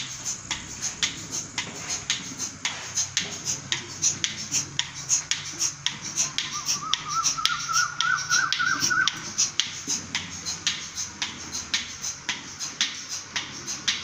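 Bucket milking machine running: the pulsator ticks in a fast, even rhythm over the low hum of the vacuum pump. A short warbling squeal rises in the middle, air being drawn in while the teat cups are put on.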